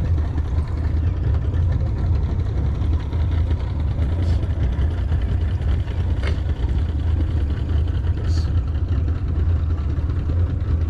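Boat's outboard motor running steadily at low speed, a constant low drone, with three faint clicks spread through the middle.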